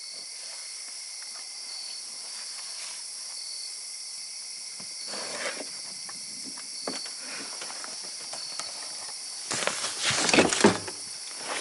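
Steady high hiss of night insects, with a short chirp repeating every second or two. Gear is being handled in a side-by-side's plastic cargo box, with light knocks and a louder burst of close rustling and knocking about ten seconds in.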